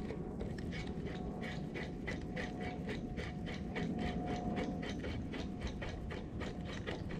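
Spinning reel being cranked to retrieve a topwater lure, its gears clicking evenly at about four clicks a second, with a faint steady whine underneath.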